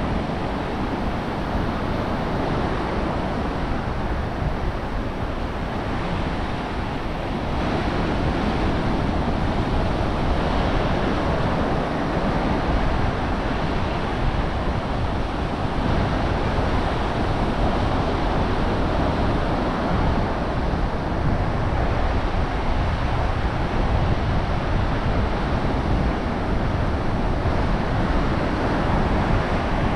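Ocean surf washing onto the beach, with wind buffeting the microphone; a steady rushing noise that gets a little louder about seven seconds in.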